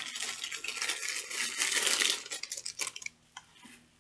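Plastic packaging crinkling and rustling as a folded apron is unwrapped by hand. It dies down about two seconds in to a few light clicks and taps.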